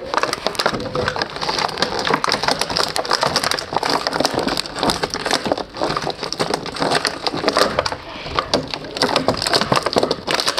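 Action figure packaging being opened by hand: plastic and cardboard crackling, crinkling and tearing in a dense, irregular run of snaps.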